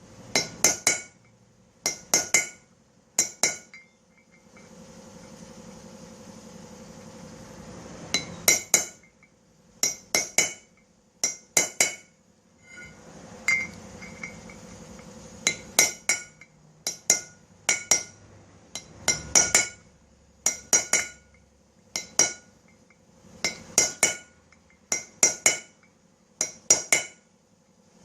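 Hammer driving a sharpened steel marking punch into the worn bearing bore of a front wheel hub, short clusters of ringing metal taps about every second and a half, dimpling the bore all around to tighten the loose bearing seat. A steady rushing noise comes in twice between the strikes.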